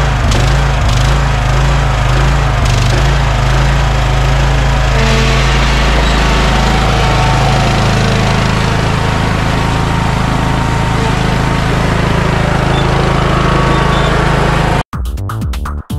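Beige Craftsman lawn tractor's rebuilt Kohler Courage engine running steadily, its note changing about five seconds in as the tractor drives off. It cuts off suddenly near the end, giving way to electronic music with a beat.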